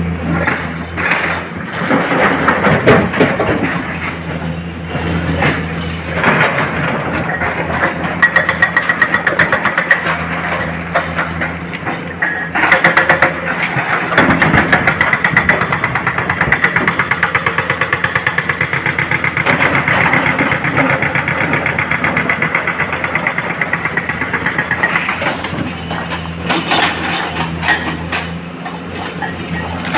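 Diesel engine of a working excavator running under load, with a steady hum and a rapid even pulse that grows louder and steadier through the middle.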